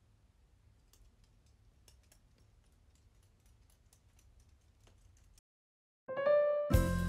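Faint, scattered light clicks of small resin fridge magnets being handled in the fingers, over a low hum. Background piano music comes in near the end and is the loudest sound.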